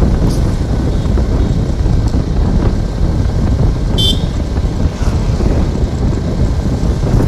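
Motorcycle riding along a street: a steady low rumble of engine and wind on the microphone, with one short horn toot about four seconds in.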